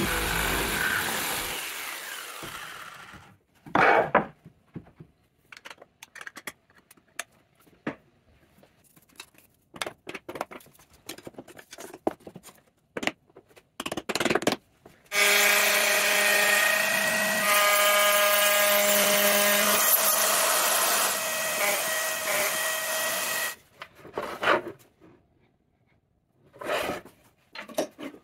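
A Black+Decker jigsaw cuts through an oak board and fades out after about three seconds. It is followed by a sharp knock and a scatter of light hammer taps and knocks. Then a power tool runs loudly for about eight seconds with a steady whine, and a few more knocks come near the end.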